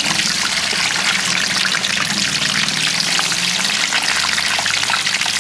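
Hot oil sizzling and bubbling steadily around skewers of peeled quail eggs deep-frying in a steel wok, with a dense, fine crackle.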